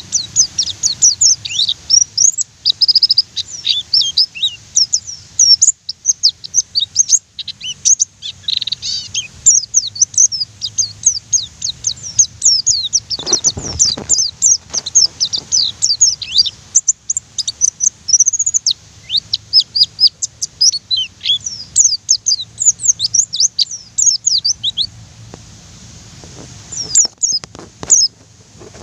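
White-eye (pleci) singing in a fast, continuous rolling chatter of high, sharply falling chirps, several a second with hardly a break. About halfway through, a short low rumble or knock sounds under the song.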